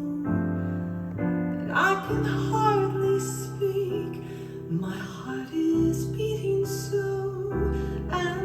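Vocal music, singing over instrumental accompaniment, played back from a cassette tape on a Pioneer Elite CT-43 cassette deck.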